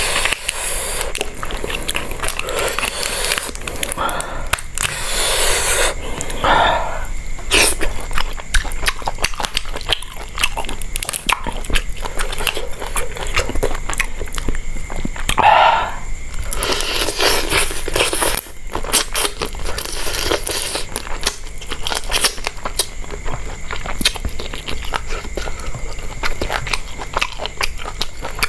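A person eating close to the microphone: biting, crunching and chewing, with many small clicks and wet smacks. A few short, louder sounds stand out, the strongest a little past halfway.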